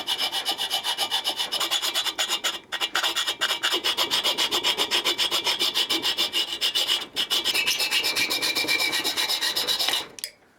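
Hand file rasping back and forth on a steel stud on a VW Beetle engine in quick, even strokes, filing down a stud that is too long and fouls the heat shield. Two brief pauses, then the filing stops shortly before the end.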